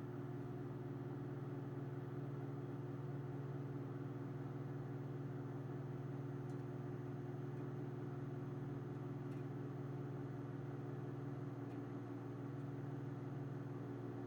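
Microwave oven running: a steady low hum from the magnetron and fan, with a few faint ticks.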